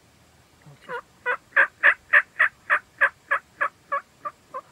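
A hen turkey's yelping series: about a dozen short yelps, roughly three a second, beginning about a second in, loudest in the middle and softer over the last few.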